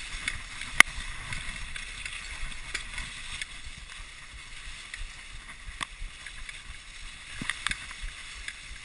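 Dog sled runners sliding over a packed snow trail with a steady hiss. Scattered sharp clicks and knocks come from the sled, the sharpest about a second in and a few more near the end.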